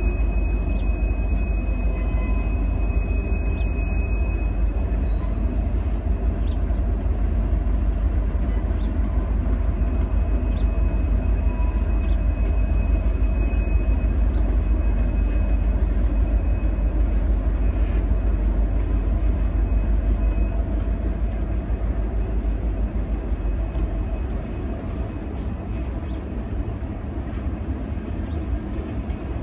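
Several Norfolk Southern diesel locomotives hauling a manifest freight train slowly: a steady deep engine rumble, with a faint thin high tone over it for much of the first two-thirds, easing a little near the end.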